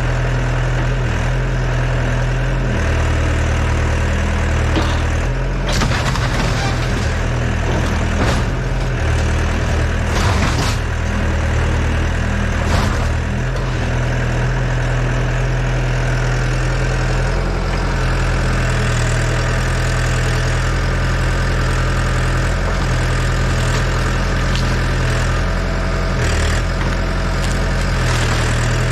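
Yanmar ViO80 excavator's diesel engine running steadily, with a few sharp cracks of wood breaking in the first half.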